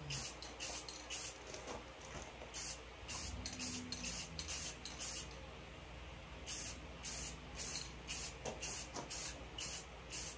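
Aerosol spray can of camo paint hissing in short, quick bursts, about three a second, laying down light coats. There is a pause of about a second past the middle.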